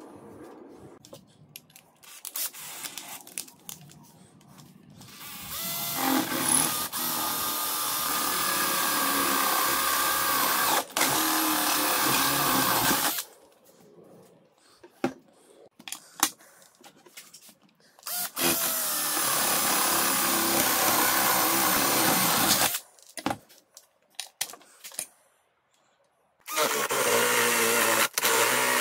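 Cordless drill running under load, boring down through the holes of a metal plate into the plywood beneath. It runs in three long bursts of several seconds each, the last starting near the end, with short clicks and knocks of handling between them.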